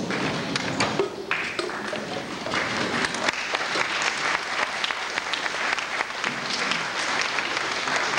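Audience applauding, many hands clapping in a dense, steady patter that builds about a second in.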